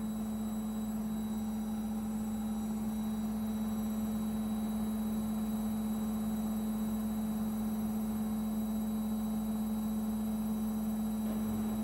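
Midea front-loading washing machine running with a steady, unchanging hum.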